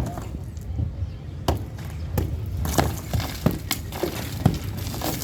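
Irregular knocks and cracks of demolition work, striking and breaking material at uneven intervals, over a steady low rumble.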